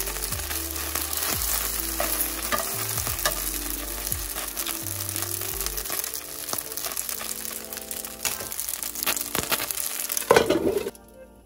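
Mini dumplings sizzling and popping in hot oil in a frying pan, the water from steaming them mostly cooked off so they are browning. Tongs click now and then as they are turned. A louder knock comes near the end, and then the sizzle cuts off suddenly.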